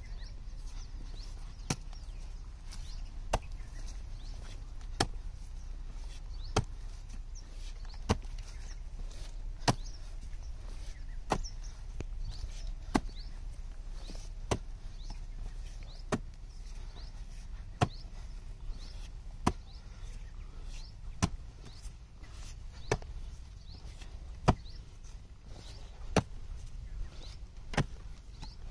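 Hand hoe chopping into dry, hard-packed soil, about one sharp strike every second and a half in an even rhythm.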